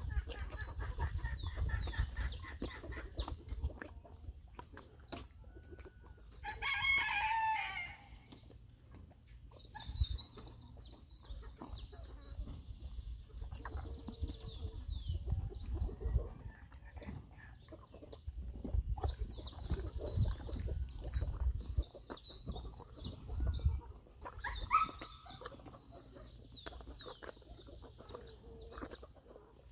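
Farmyard sounds: a rooster crows once, about a quarter of the way in, among many short high bird chirps and some chicken clucking, over a low rumble.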